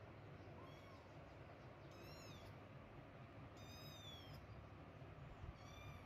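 Kitten meowing: about four thin, high-pitched, faint calls, each rising then falling in pitch. The last call carries on past the end.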